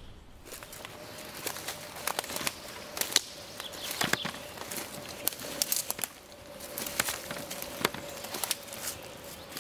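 Footsteps through dry leaf litter and brush on a forest path, with irregular crackling and snapping of twigs and leaves.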